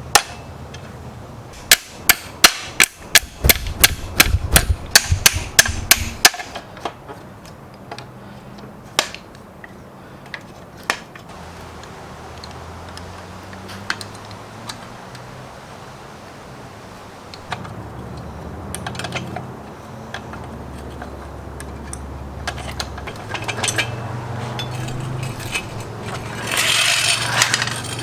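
A hammer striking metal in a quick run of blows, about three or four a second, for a few seconds, then single knocks now and then. A short stretch of metal scraping comes near the end.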